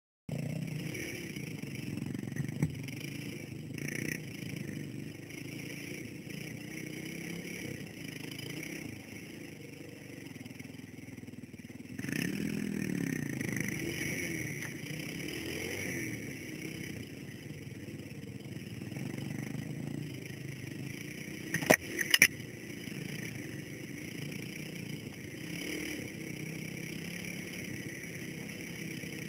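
Dirt bike engine running under way on a rough trail, its pitch rising and falling as the throttle is worked, heard from the rider's helmet. Two sharp knocks, the loudest sounds, come about two-thirds of the way through.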